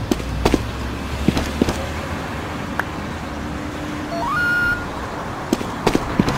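Street traffic ambience: a steady low rumble of passing road traffic with scattered short clicks. About four seconds in, a short cartoon tone rises in steps and then holds briefly.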